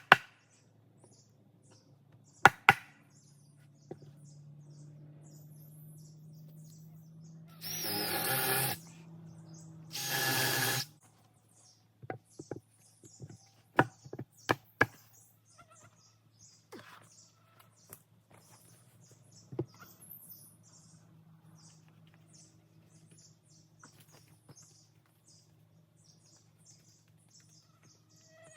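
Power drill boring into wood in two bursts of about a second each, with scattered sharp knocks of wood and tools being handled before and after.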